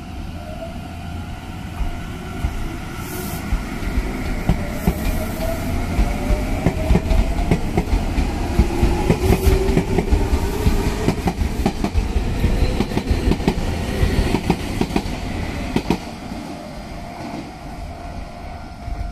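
Nagoya Municipal Subway 3050 series electric train pulling out and accelerating: its traction motor whine rises in pitch while the wheels clack over the rail joints, then the sound fades as the train moves away, about three seconds before the end.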